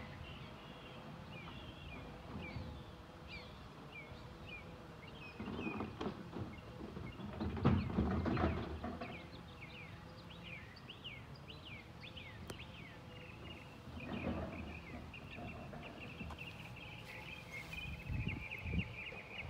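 Small birds chirping in quick repeated notes, over a faint steady hum. About six to nine seconds in there is a louder rumble and clatter, with a shorter one near fourteen seconds.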